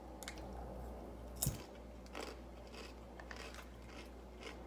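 Someone chewing crunchy barbecue Fritos corn chips: faint, irregular crunches, with one sharper crunch about a second and a half in.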